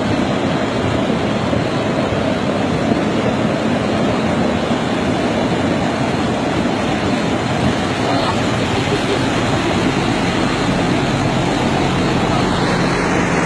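Steady rushing noise of a muddy huaico torrent, with a low steady hum joining near the end.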